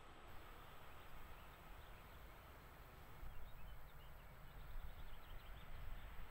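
Quiet open-air trackside ambience: a low rumble that swells slightly in the second half, with faint high chirping from about three seconds in.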